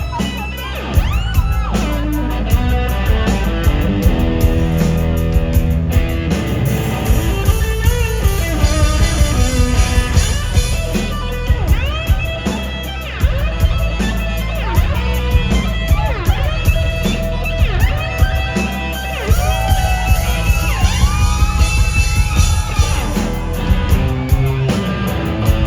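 Live rock music: an electric guitar playing a lead line full of bent notes over driving drums.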